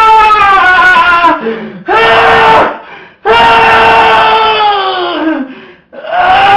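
Loud, shrill wailing cries, each held on one high pitch and then sagging down at the end. There are about four of them, one short and one long, with brief gaps between.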